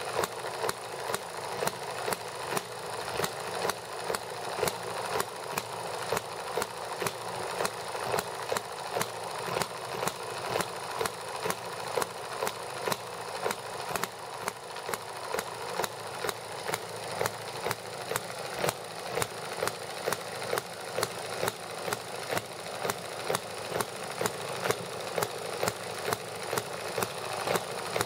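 Small horizontal model gasoline engine running on its own, a steady, even train of sharp firing pops.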